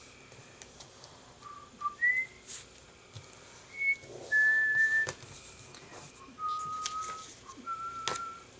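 A person whistling a slow tune softly to themselves, a few separate held notes, one longer than the rest. A few light taps of card and paper being handled.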